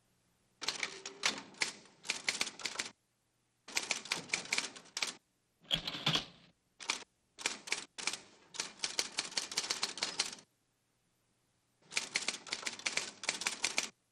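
Typewriter keys being struck rapidly in several bursts of typing with short pauses between them, with a heavier clunk about six seconds in.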